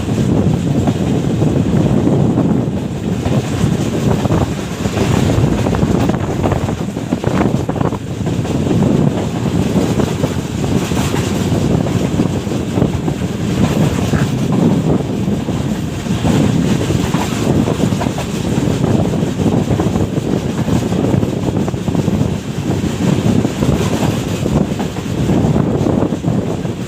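Pak Business Express passenger train running along the track: a steady, loud rumble with wind buffeting the microphone.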